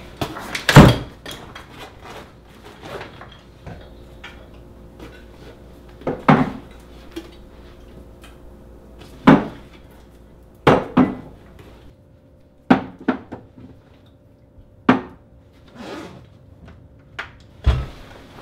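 Wooden kitchen cabinet doors and the cans and cups on their shelves being handled: a dozen or so separate knocks and clunks, spaced a second or more apart.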